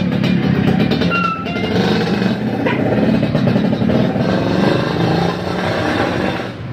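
Steady engine and road noise of passing traffic, such as a tour bus going by.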